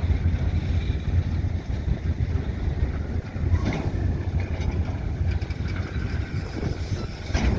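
Freight train of covered boxcars rolling slowly past, a steady low rumble of steel wheels on the rails, with a couple of louder knocks, one about halfway and one near the end.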